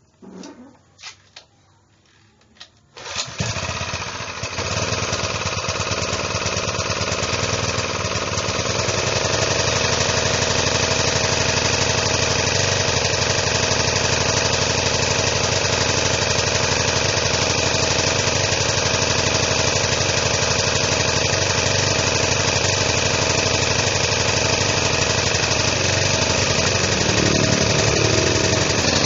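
Firman FPG1500L generator's small four-stroke engine starting about three seconds in after a few short knocks, then running steadily. The generator has been repaired and is running normally, ready for use.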